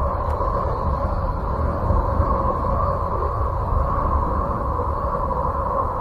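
Sonification presented as the sound of Uranus: radio and plasma-wave emissions from the planet's magnetic field, recorded by a spacecraft and turned into audio. It is a steady rumbling, hissing drone with a hum running through it.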